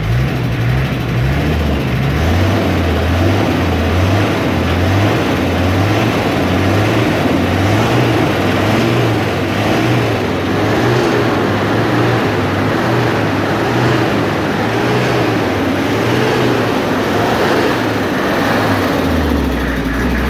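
Toyota Land Cruiser diesel engine, its injection pump just rebuilt and refitted, revved lightly up and down again and again, then dropping back to idle near the end. It runs smoothly, a sign the rebuilt pump has cured the earlier smoking.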